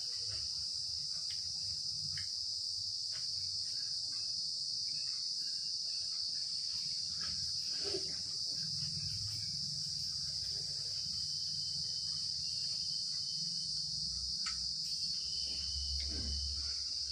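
Steady, high-pitched chirring of insects that does not let up, over a low rumble and a few faint clicks.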